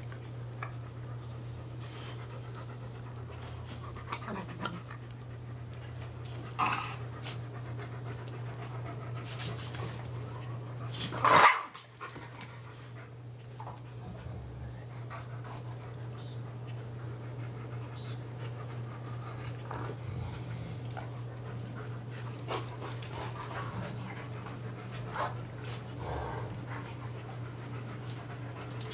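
Dogs panting as they jostle, with scattered short faint sounds and one loud, sharp outburst about eleven seconds in, over a steady low hum.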